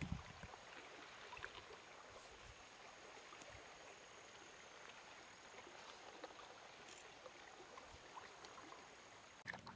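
Near silence: a faint trickle of shallow stream water with scattered small ticks, and a thin steady high tone that stops near the end.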